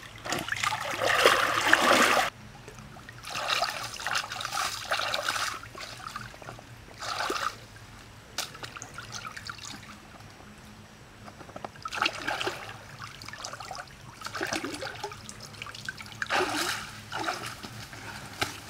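Water splashing in irregular bursts as hands scoop and work in a shallow stream, the loudest and longest splashing in the first two seconds, with shorter splashes later.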